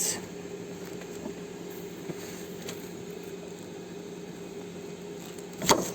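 Steady low background hum with a few faint clicks as metal suspension ball joints are handled, then a sharp metallic clack near the end as the parts knock together.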